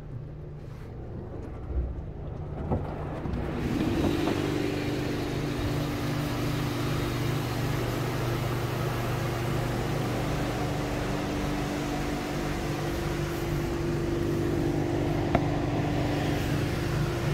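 AUTEC AES-260 in-bay automatic car wash running, heard from inside the car: brushes and spray working over the car, and from about four seconds in a steady machinery hum with two low tones.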